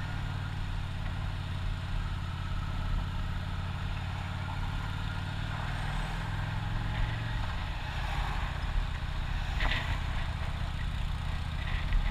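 Motorcycle engine running at low road speed, with wind rumbling on the microphone. The engine note shifts slightly about seven seconds in, and there is one short knock near ten seconds.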